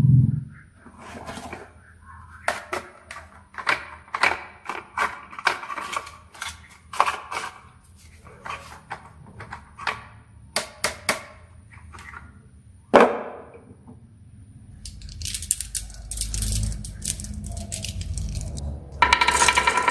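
Marbles rolling and clattering down a wooden marble run: irregular sharp clicks and knocks, with one louder knock about 13 seconds in. About 15 seconds in a low rumble starts under dense clattering.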